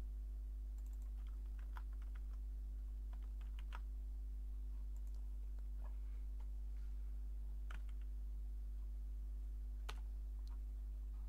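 Computer keyboard keystrokes and a few clicks, scattered and irregular, over a steady low hum.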